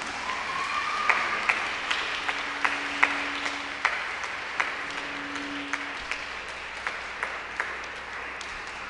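Audience applauding, a steady wash of clapping with a few individual hand claps standing out sharply.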